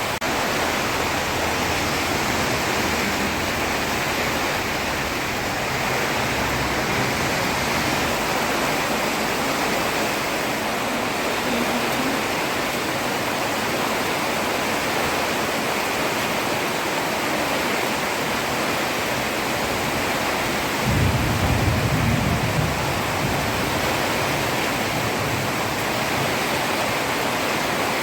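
Heavy rain falling steadily, a dense even hiss. A brief low rumble swells up and fades about three-quarters of the way through.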